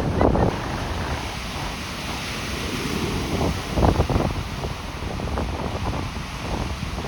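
Ocean surf washing on a beach, with wind buffeting the microphone in low rumbling gusts.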